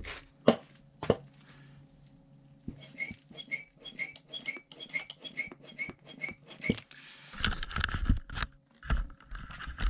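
Suspension seatpost squeaking as it is worked, a quick series of short high squeaks, with a couple of knocks before and a rougher rubbing sound near the end. The squeak is fairly loud and is a sign the seatpost needs opening and servicing.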